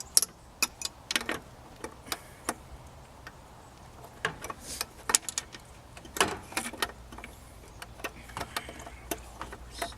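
Irregular sharp plastic clicks and knocks as a replacement headlight part is forced into place by hand; it is refusing to seat.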